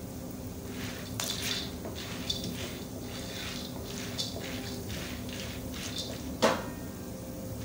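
Wooden spoon stirring popcorn kernels in hot oil in an iron wok, with repeated scraping and rattling strokes over a steady hum. The kernels are just starting to pop, and one sharp crack comes about six and a half seconds in.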